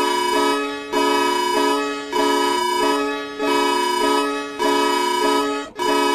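Emergency-alert-style alarm tone: several steady electronic tones sounding together, switching between notes in a short pattern that repeats about every 1.2 seconds, with a brief dip between repeats.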